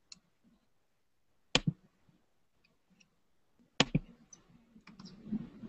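A few short, sharp clicks of a computer mouse: a pair about a second and a half in, another pair near four seconds, with fainter ticks between. A faint low murmur follows near the end.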